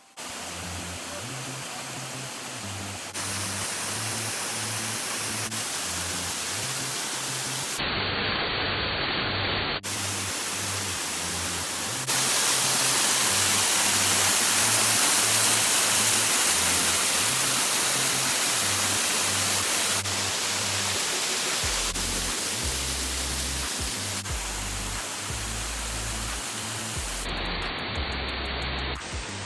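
A waterfall's rushing water: a steady, dense hiss that changes abruptly in level and tone at cuts between shots, loudest from about twelve seconds in to about twenty. Background music with a steady pulsing bass runs underneath.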